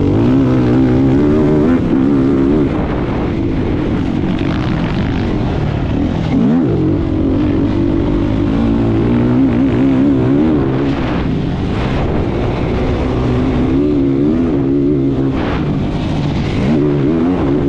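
Racing vehicle's engine running hard at high revs, its pitch wavering up and down; about six and a half seconds in the revs drop sharply and climb straight back, as at a gear change or a lift off the throttle.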